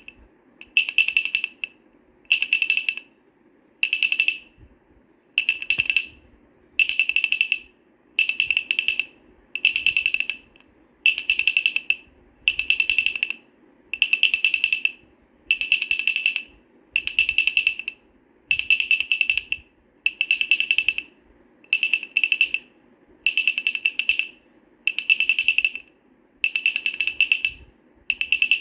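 Wooden baby rattle shaken in short rattling bursts, one shake roughly every second and a half in a steady rhythm, over a faint low hum.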